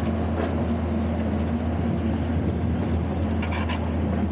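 Engine-driven opal agitator, a giant cement-mixer-style drum, running steadily with its water pump and conveyor, giving a loud constant mechanical hum. A few brief clicks come about three and a half seconds in.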